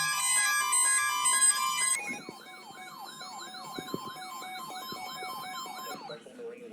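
A pitched electronic melody that stops abruptly about two seconds in, followed by an electronic siren yelping in rapid falling sweeps, about three a second, for about four seconds. A short steady low tone follows near the end.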